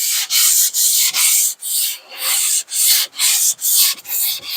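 A Sargent 414 hand plane's cast-iron body is rubbed back and forth on 600-grit sandpaper, lapping its side flat. It makes a gritty scraping stroke about twice a second.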